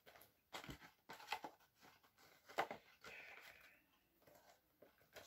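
Faint handling of a plastic DVD case and its discs: a few soft clicks and taps, the sharpest about two and a half seconds in, and a short rustle just after.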